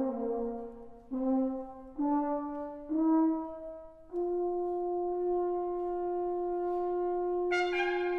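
A French horn plays a slow rising line: four notes stepping upward about a second apart, then one long held note. Near the end a trumpet comes in above it with short bright notes.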